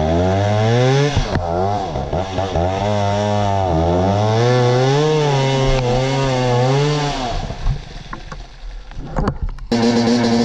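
Two-stroke enduro dirt bike engine revving hard in repeated rising and falling bursts as it struggles for grip up a steep, slippery woodland climb. After about seven seconds it drops away. Near the end a closer engine cuts in abruptly at a steady rev.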